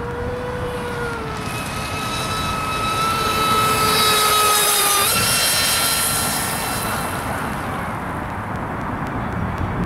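Triton RC speedboat running flat out, its motor a steady whine over the hiss of spray. It grows loudest as the boat passes close about four to five seconds in, and the pitch drops as it goes by.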